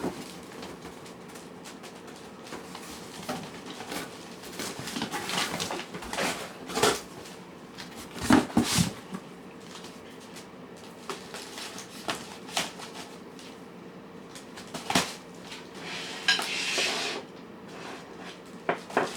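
Cats and kittens eating from food dishes: irregular clinks, knocks and scrapes of the bowls as they feed, loudest in a cluster about eight seconds in.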